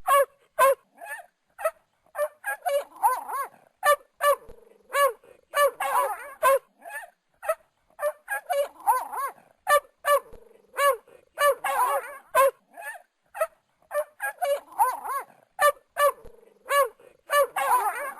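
Dogs barking over and over in short, sharp barks, two or three a second, with stretches where several barks overlap in a dense flurry.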